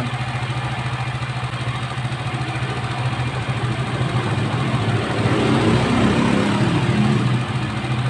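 Motorcycle engine idling steadily with an even low pulse, growing louder for a couple of seconds past the middle.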